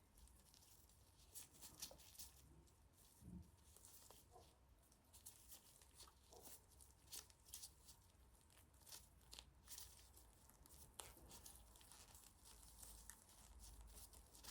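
Faint rustling and scattered light clicks of a laptop power cable being handled and unwound.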